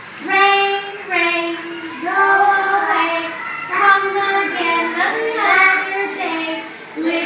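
A children's song sung in high voices, held notes stepping up and down in pitch with short breaks between phrases.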